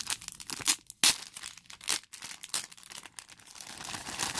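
Plastic shrink wrap being torn and crinkled off a CD album. A few sharp crackles come about a second in, then steadier crinkling near the end.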